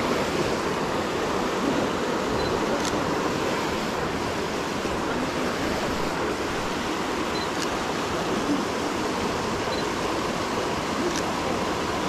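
Creek water rushing steadily over rocks and small rapids, with a few faint clicks.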